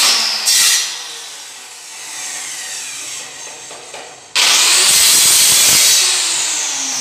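Handheld electric power saw started in two bursts: it switches on loudly at the start and its whine falls away over the next second or so, then it starts again about four seconds in, runs at full speed, and its whine drops as it spins down near the end.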